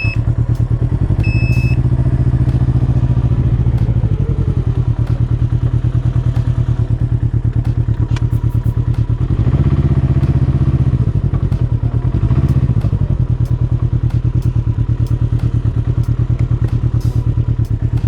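Can-Am Ryker reverse trike's engine running at low speed as it is backed up, swelling briefly three times as the throttle is opened. A short electronic beep sounds about a second in.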